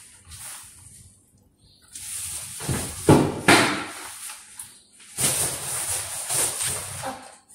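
Metal spoon scraping and clinking against a stainless steel bowl in two rasping spells, with a couple of sharper clinks in the first.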